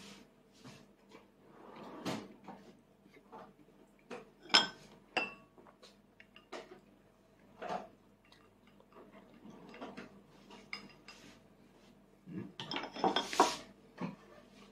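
Small spoon clinking and scraping against a bowl in scattered, irregular taps, the sharpest clink about four and a half seconds in, with a busier run of scraping and knocks near the end.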